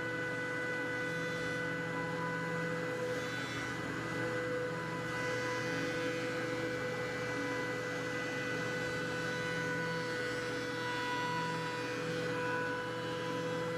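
DeWalt DW735 thickness planer running with a steady whine.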